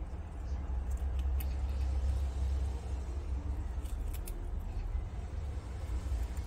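Prairie dogs chewing and tearing fresh grass blades, heard as faint crisp clicks and crunches in small clusters, over a steady low rumble that is the loudest sound.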